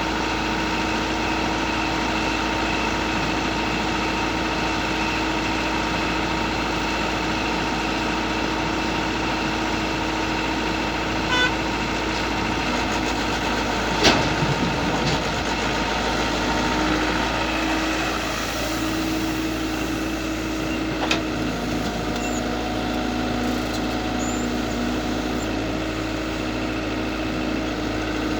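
Mini excavator engine running steadily, with a few short knocks or clanks, the sharpest about halfway through, and its note shifting slightly about two-thirds of the way in.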